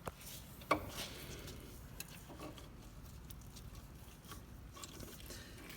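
Light, scattered metal clicks and clinks of Trac-Lok clutch plates and discs being handled and worked into line in the differential case, with one sharper click about a second in.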